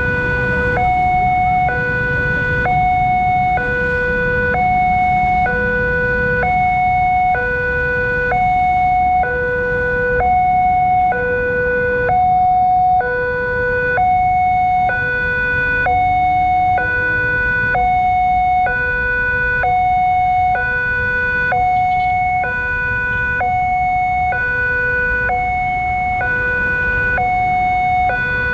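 Electronic railway level-crossing alarm sounding a two-tone wail like an ambulance siren, switching evenly between a low and a high tone about once a second, with waiting road traffic rumbling underneath.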